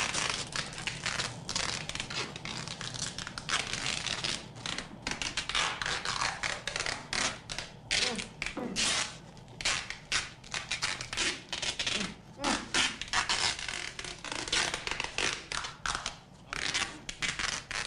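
Adhesive tape being pulled off the roll in quick, irregular rips and crinkling as it is wrapped tightly around a bound person.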